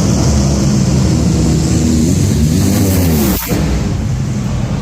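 NHRA top fuel dragsters' nitro-burning engines blaring down the strip, a loud crackling roar whose pitch bends as they go by. The sound drops off sharply about three and a half seconds in.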